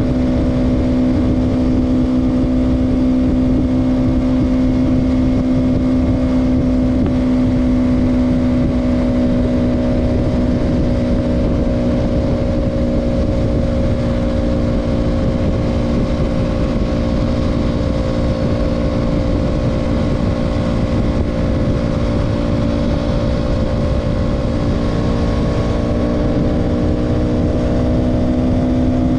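KTM Duke 200's single-cylinder engine running at a steady cruise, its note sagging slightly through the middle and climbing again near the end, over steady wind noise.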